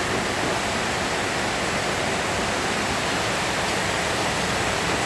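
Steady rushing noise of heavy rain, even and unbroken.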